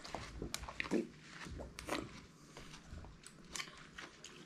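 Watermelon being bitten into and chewed, with irregular soft crunches.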